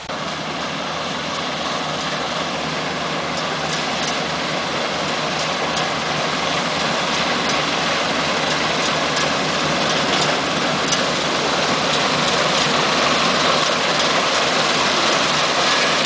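WORLD 4LZ-2 combine harvester with its 90 hp engine running steadily under load while cutting and threshing wheat, a constant hum and rattle that grows gradually louder as the machine comes closer.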